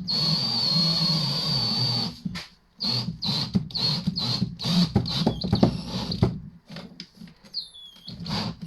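Battery drill turning a wire-stripping machine as copper cable is fed through it. It runs with a steady high whine for about two seconds, then goes in a run of short stop-start bursts.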